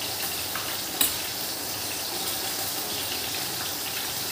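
Tilapia pieces frying in mustard oil in a pan, a steady sizzle, with a spoon tapping once against a glass bowl about a second in.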